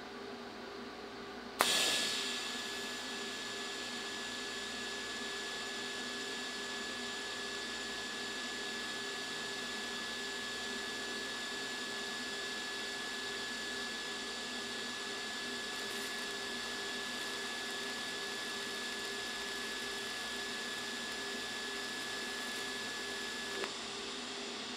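TIG welding arc, struck on a dime against mild steel plate. It starts with a sharp snap about a second and a half in, then runs as a steady hiss with a thin, high, even whine for about twenty-two seconds, and stops with a small click a second before the end.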